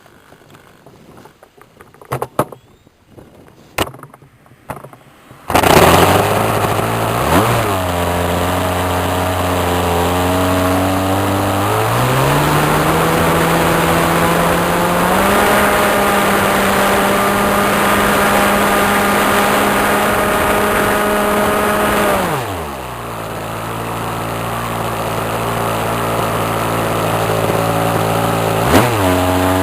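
Model airplane engine starting suddenly after a few handling knocks, idling, then run up in two steps to a steady high speed and throttled back to idle, with one quick blip of throttle near the end.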